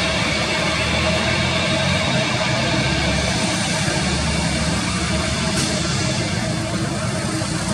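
Boeing 787 taxiing with its jet engines at idle: a steady whine with several held tones over a low rumble.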